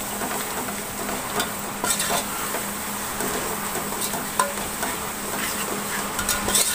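Metal spatula stirring and scraping a yogurt-and-spice masala frying in oil in a large metal pot, over a steady sizzle. Scattered clicks as the spatula knocks the pot, a cluster about two seconds in and another near the end.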